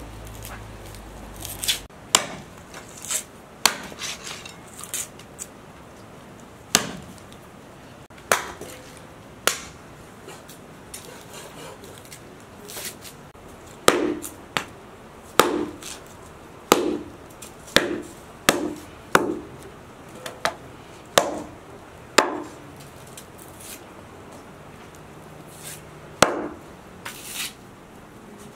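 Large kitchen knife chopping through lamb ribs on a wooden cutting board. Sharp knocks come irregularly, then a run of about ten heavy chops in the middle, each thudding on the board.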